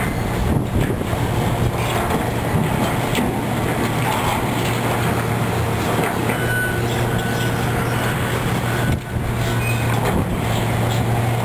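Heavy demolition machinery: an engine running steadily under load, with scattered knocks and brief metallic squeals as it breaks into the building.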